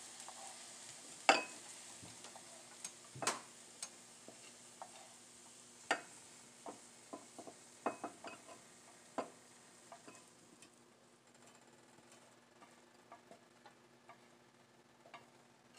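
Irregular clinks and taps of a utensil as fried chopped vegetables are scraped from a pan into a glass bowl, over a faint sizzle fading away. The taps are busiest in the first ten seconds and thin out after.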